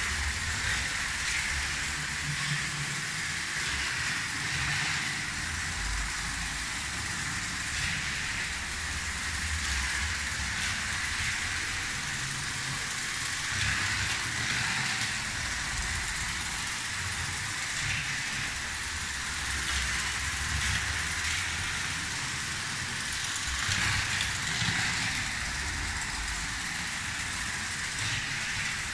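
Lego 12-volt train running steadily on plastic track: the electric motor whirring and the wheels rolling, with a few faint clicks along the way.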